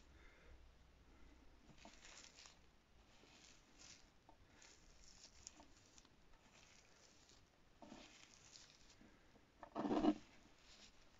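Flossy clay studded with foam nano beads crackling and squishing faintly under the fingers as it is pressed and kneaded, in short spells, with a louder squeeze near the end as the clay is crushed in a fist.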